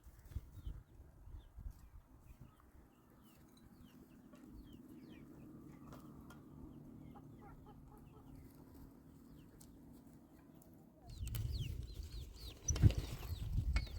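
Chickens clucking, with many short, high chirps scattered through. A faint steady low hum sits underneath in the middle, and louder rustling and thumps come in near the end.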